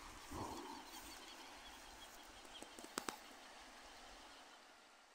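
Faint outdoor sound of the flooded river: a steady wash of noise with scattered bird chirps. A short call comes about half a second in, and two sharp clicks come about three seconds in. The sound fades out at the end.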